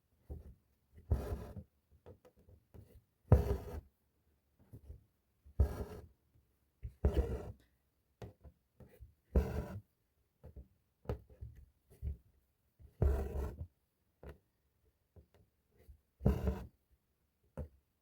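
Embroidery needle and thread being drawn through fabric, one stitch after another: a short rasping rustle about every one to two seconds.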